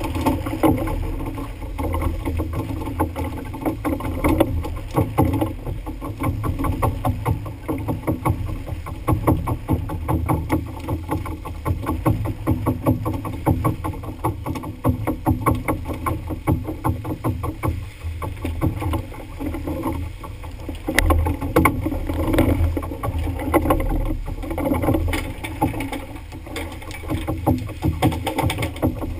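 Constant hissing spatter of water spray hitting the sea surface beside a fishing boat under way, over a steady low rumble from the boat.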